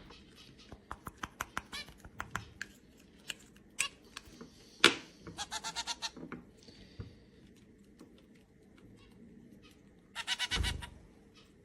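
A bird pecking at food, making quick irregular taps and clicks on a hard surface, with two short pulsed bird calls, one about five seconds in and one near the end.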